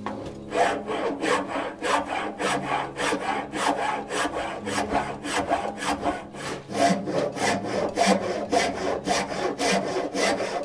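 A hand tool worked back and forth over wood in quick, even rasping strokes, a little over two a second, as when the grooves of a spiral are cut and shaped by hand.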